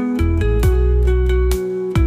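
Background music: plucked guitar notes over a deep bass line, with a steady beat.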